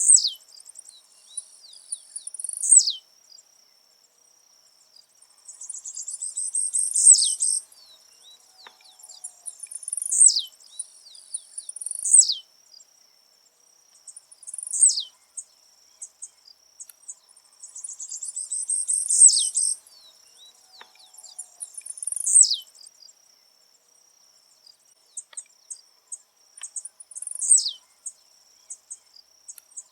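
Blue-black grassquit (tiziu) singing over and over: a short, high, buzzy phrase that ends in a sharp downward-sweeping note, repeated every two to three seconds.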